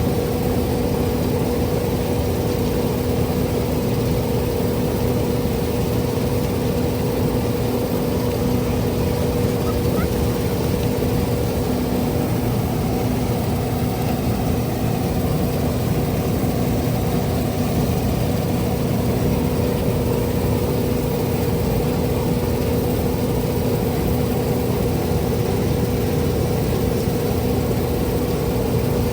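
Steady machine hum holding one constant pitch over a broad rushing noise, unchanging throughout.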